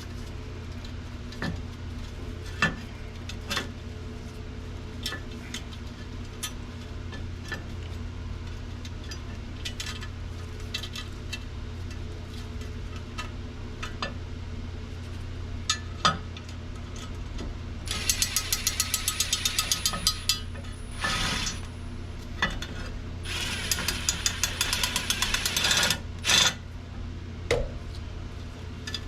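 Scattered clinks and knocks of hand tools on metal, with two bursts of a power tool rattling rapidly, over a steady low hum.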